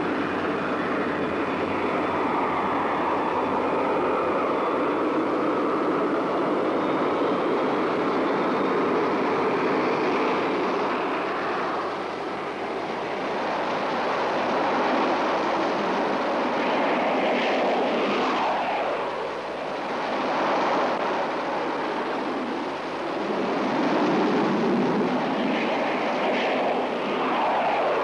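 Fiat G.91 fighters' jet engines running loudly on the ground as the aircraft taxi: a steady rush of jet noise with a thin high whine that glides in pitch through the first ten seconds. The noise swells twice in the second half.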